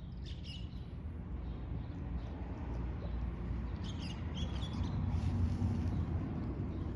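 A few short, high bird chirps, about half a second in and again around four seconds in, over a steady low rumble.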